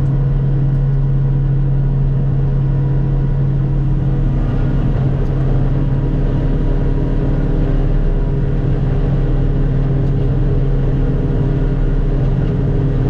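Self-propelled forage harvester running steadily under load while chopping grass silage: a constant engine and machine drone with a strong low hum.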